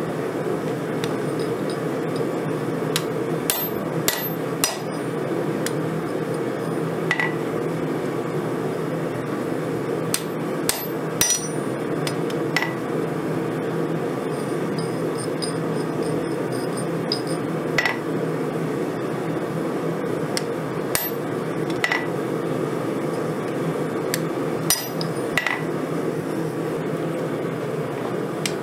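Hand hammer striking hot steel on a Vevor 132-pound steel anvil: about a dozen ringing blows at irregular spacing, some in quick pairs or triples, others several seconds apart. A steady low rush runs underneath.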